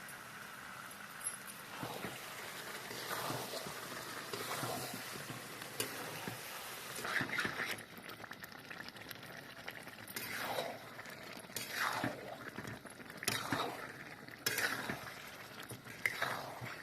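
Chicken masala curry being stirred in a pan over heat. The spoon scrapes the pan in repeated strokes, most regularly in the second half, about one every second and a half, over a low sizzle.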